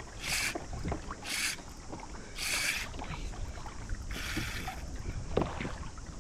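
Fishing reel drag buzzing in four short bursts as a hooked fish runs and pulls line off the reel.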